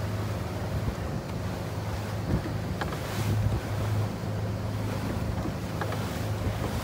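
Outboard motor running at a steady speed as a small boat moves across choppy water. The motor's hum sits under water rushing along the hull and wind on the microphone.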